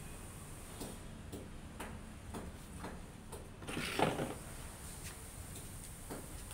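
Faint, regular light clicks about twice a second, with a louder rustle of long wet hair being handled and shaken about four seconds in.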